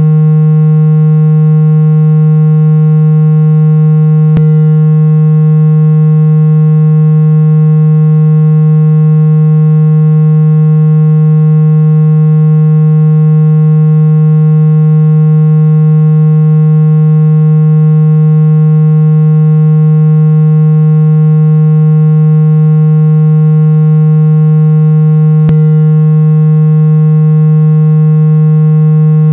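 Loud, steady synthesized low-pitched drone with a ladder of fainter overtones, holding one unchanging pitch, offered as a sound to unblock the ears. A faint click is heard twice, about four seconds in and near the end.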